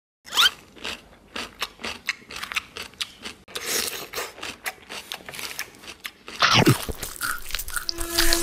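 Crunchy food being bitten and chewed, ASMR-style: many short crisp crunches at an irregular pace, louder for about half a second around six and a half seconds in.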